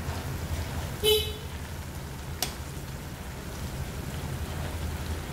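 Steady low hum of the running stove under the wok, with a brief loud toot, like a horn, about a second in and a single metal clink of a spoon against the stainless steel wok about two and a half seconds in.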